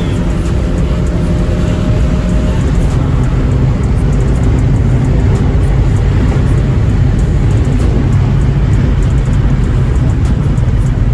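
Steady car noise: an engine running and a low, even hum.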